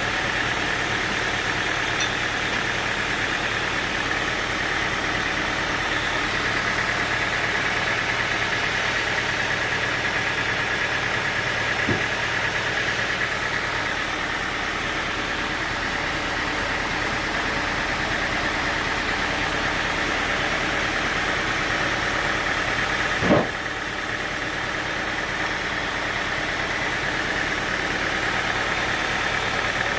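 Sawmill machinery running steadily, with a light knock near the middle and a louder sharp knock about three-quarters of the way through.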